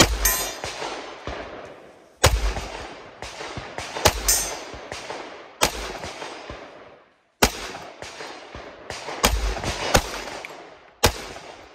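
Compact semi-automatic pistol fired in slow, deliberate shots, about eight in all, one to two seconds apart, each crack followed by a trailing echo.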